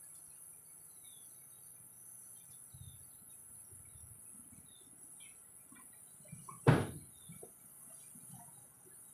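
A single sharp knock about two-thirds of the way through, over a quiet background with faint, short high chirps.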